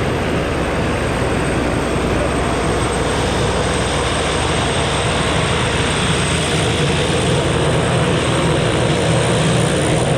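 Propeller engine of a small skydiving plane running steadily during the climb to jump altitude, heard from inside the cabin.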